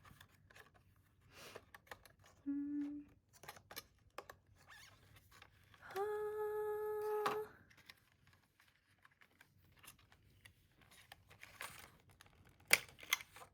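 A woman humming: a brief low "hmm" about two and a half seconds in, then a longer held "mmm" around six seconds in. Between them, faint rustling and clicking of handled packaging, with a few sharp clicks near the end.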